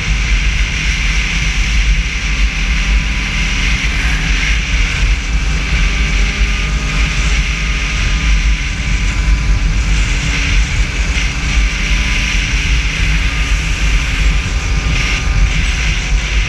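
Snowmobile engine running steadily while the sled cruises along a groomed trail, with a strong low rumble of wind on the microphone.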